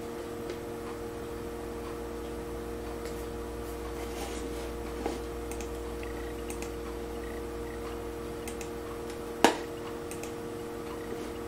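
Steady hum made of several held low tones, with faint scattered ticks and one sharp click about nine and a half seconds in.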